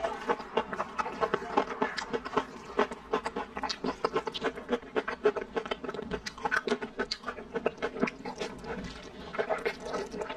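Close-miked mouth sounds of eating braised napa cabbage and glass noodles: wet chewing and lip-smacking in a quick run of small clicks, several a second, with noodles slurped in near the end.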